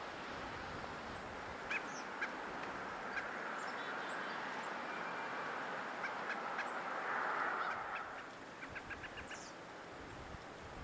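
Small birds calling: scattered short chirps and thin high notes, with a quick run of about six chirps near the end, over a steady hiss.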